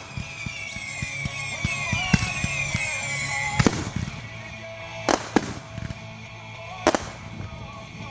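Consumer fireworks going off: a run of crackling pops, then four sharp bangs in the second half, with music playing underneath.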